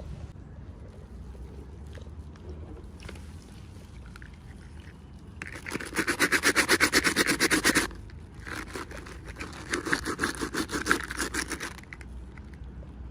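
Fast, even scraping strokes, about a dozen a second, in two spells: a loud regular run about halfway in, then a looser run just after it.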